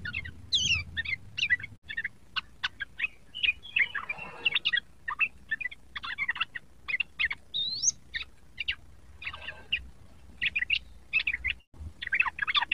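Young yellow-vented bulbul (trucukan) singing in fast, bubbly runs of short chattering notes with a few rising whistles, the rapid-fire 'ropel' song used as a lure to set other trucukan singing.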